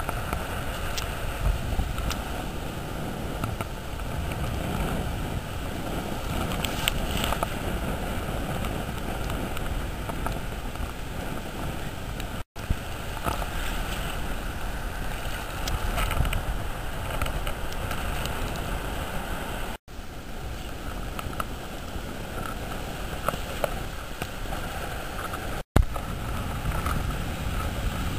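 Wind rumbling on the microphone over the wash of shallow surf, a steady noisy rush that drops out for an instant three times.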